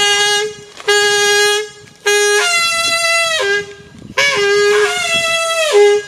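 Loud horn-like notes, each held for about a second, several of them sliding down in pitch near their ends.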